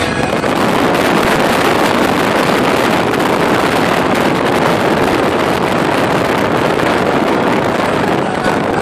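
Loud, steady rush of wind and road noise from a car driving along a road, heard from inside the car.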